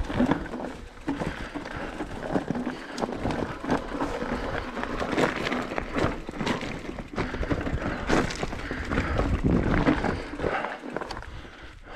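Enduro mountain bike ridden over a rough, rocky trail: tyres crunching over stones and the bike rattling, with frequent uneven knocks and thuds from the bumps.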